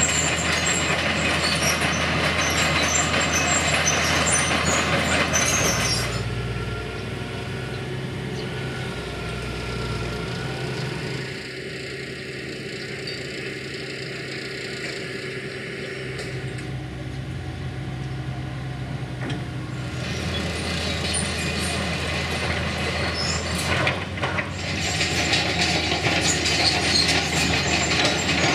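Hitachi hydraulic excavator at work on railway track laying: a diesel engine hum runs steadily and quieter through the middle. Louder, noisy machine clatter with high squeaks sits at the start and again from about two-thirds of the way in.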